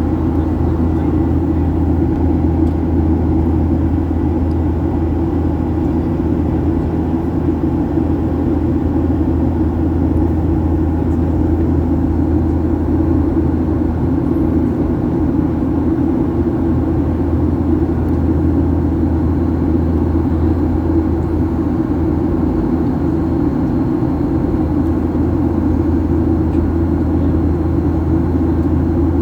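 Steady drone of an airliner's engines and rushing air, heard inside the passenger cabin.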